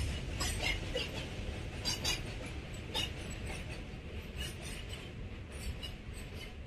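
Distant freight train rolling over a girder bridge: a steady low rumble with scattered metallic clinks from the wagons, easing slightly as the last wagons and the brake van pass.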